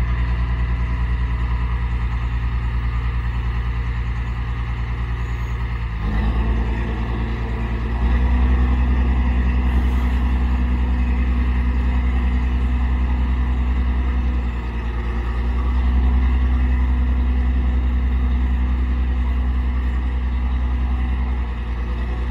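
Sterling Acterra truck's diesel engine running while its hydraulic hoist raises the dump bed. The engine speeds up about six seconds in and again two seconds later, eases briefly midway, and drops back near the end.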